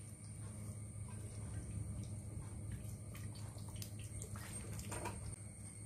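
Water poured from a cup into a pan of cut jackfruit, jackfruit seeds and drumstick pieces: a faint trickling and splashing as it runs over the vegetables, a little stronger about four to five seconds in.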